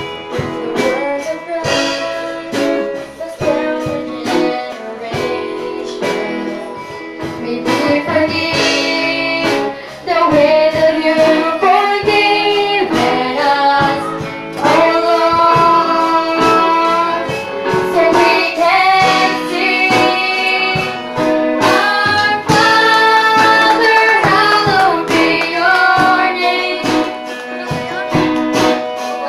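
Live worship music from a children's band: two girls singing a song into microphones, with keyboard, electric guitar and drums. The band plays louder from about ten seconds in.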